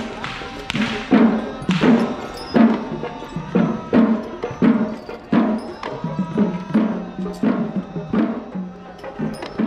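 Background music with a slow drum beat, about one ringing strike a second, over a few held tones.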